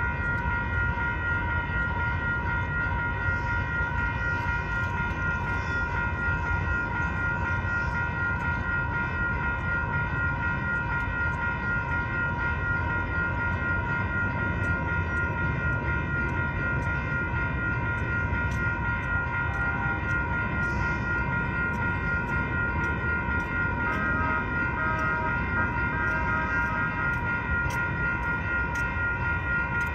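Railroad crossing bells ringing continuously as the crossing signals activate, several bells sounding together, with a low rumble underneath.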